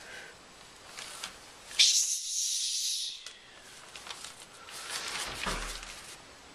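A man hissing through bared teeth: one loud, high hiss lasting about a second and a half. Fainter rustling follows near the end.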